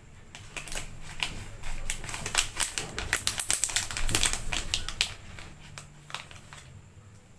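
Plastic zip pouch crinkling and crackling as it is handled and a small tin and brush are slid inside, in a quick run of sharp crinkles that is loudest in the middle and dies away near the end.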